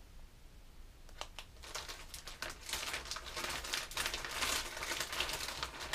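Plastic bags of soft plastic fishing worms crinkling and rustling as they are handled. The crinkling is sparse for the first second or so, then becomes dense and busy.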